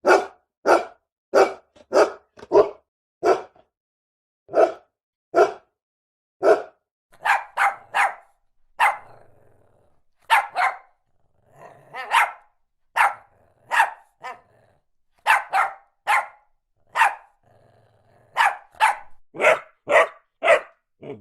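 A dog barking: about thirty short single barks in an uneven series, with a few brief pauses, coming faster, roughly two a second, near the end.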